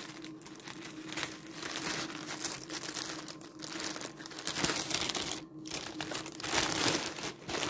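Grey plastic mailer bag crinkling and rustling in irregular bursts as hands handle it and open it.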